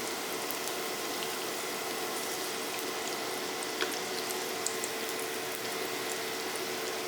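Filled pancakes frying in hot vegetable oil in a pan: a steady sizzle with a few small pops.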